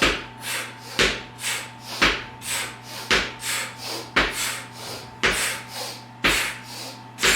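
Medicine ball tapped on the floor from side to side, a knock about once a second, with short sharp breaths in between on each twist. A faint steady hum runs underneath.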